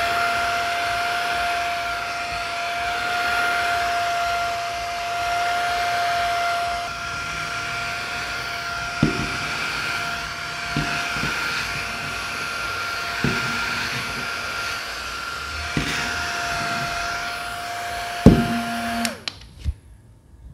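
Small handheld rechargeable bladeless fan running, a steady high motor whine over rushing air, with a few knocks from handling. The loudest knock comes near the end, and the fan cuts off suddenly just after it.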